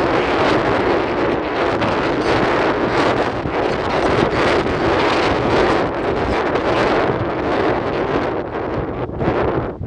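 Wind blowing hard across the microphone: a steady rushing, buffeting noise that eases slightly near the end.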